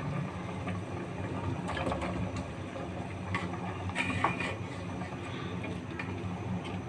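Kitchen stove-top cooking: a steady low hum with a few faint knocks and scrapes, about two and four seconds in, while mutton and potatoes cook in the pot.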